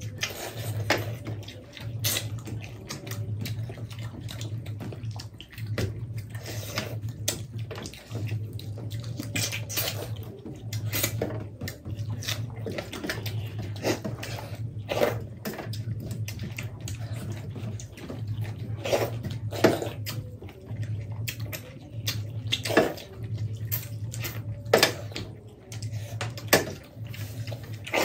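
Hand-eating of chicken curry and rice from steel plates: wet squelching and chewing, with frequent sharp smacks and clicks. A low hum pulses on and off underneath.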